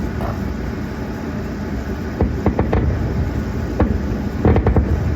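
Fireworks going off at a distance: a steady low rumble with clusters of sharp pops and crackles, about two seconds in and again near the end.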